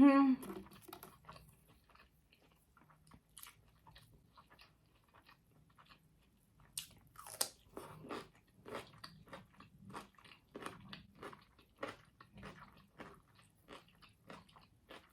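A person chewing a bite of chicken sandwich: a steady run of small crunching and mouth clicks, denser and louder from about seven seconds in. A short hummed voice sound opens it.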